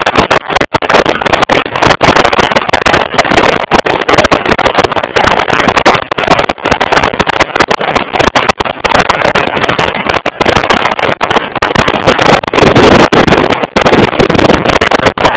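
Riding a motorcycle at road speed: heavy wind rushing over the microphone mixed with the engine's drone, loud and choppy, with frequent brief dropouts.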